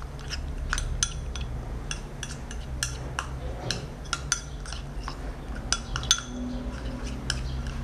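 Metal spoon stirring a thick oatmeal, green tea and honey paste in a small bowl, clinking against the bowl's sides in irregular light taps, a few a second.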